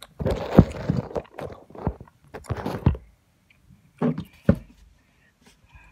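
Handling noise on a phone's microphone: rubbing, scraping and clicking as the phone is gripped and moved for about three seconds, then two knocks about four seconds in as it is set in place.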